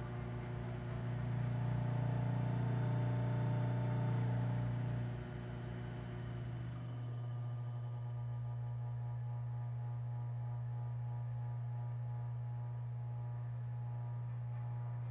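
Washing-machine motor running on a speed controller, giving a steady electric hum; it gets quieter about five seconds in, and the low rumble under the hum falls away soon after.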